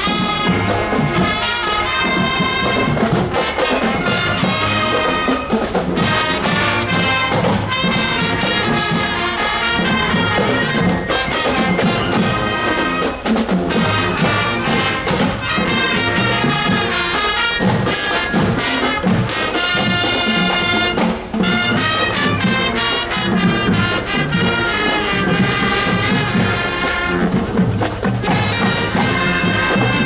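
Marching band playing a brass-led tune while parading, with trumpets and trombones carrying the melody.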